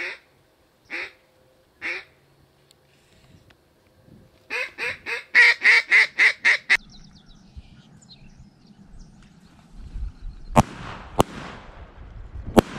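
A mallard duck call blown in single quacks about a second apart, then a fast, loud run of about a dozen quacks. Near the end come three shotgun blasts, two close together and a third a little later; these are the loudest sounds.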